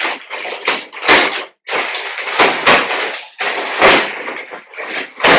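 Plastic vacuum-pack wrapping being torn and pulled off a compressed latex mattress, crinkling and ripping in repeated bursts, with several dull thumps as the mattress is handled.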